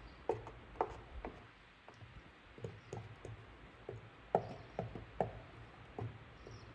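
About a dozen light, irregular clicks and taps of hand work on a cracked plastic ATV body panel being repaired.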